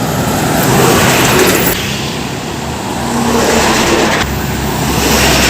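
Heavy truck going by on the road, its engine and tyre noise loud and swelling, with a deeper engine rumble coming in about four seconds in.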